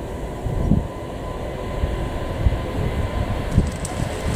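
Airbus A380's four jet engines rumbling as the airliner rolls along the runway, growing slightly louder, with a thin steady whine over the low rumble.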